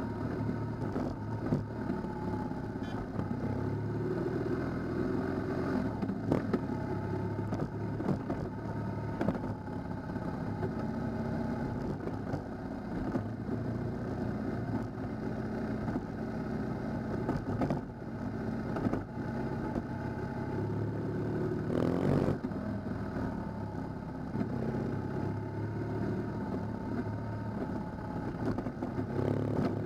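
Onboard sound of an adventure motorcycle ridden over a rough dirt and gravel track: the engine runs steadily, its note rising and falling with the throttle, with scattered knocks and clatter from bumps and stones. About two-thirds of the way through comes a brief loud rush of noise.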